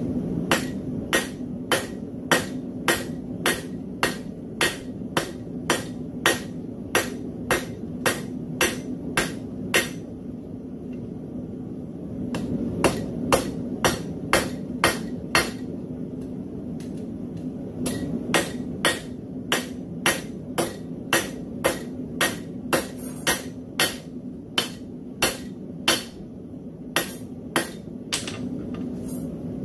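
A hand hammer strikes a red-hot railroad-spike cross on a steel anvil while it is being forged. The sharp, ringing blows come about two a second, in three runs with short pauses between them, over a steady low hum.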